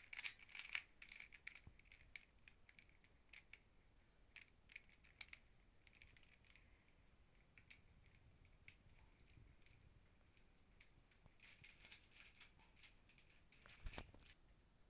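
Plastic puzzle cube being turned by hand: faint runs of light clicks as the layers snap round, busiest in the first couple of seconds and again near the end, with a soft knock just before the end.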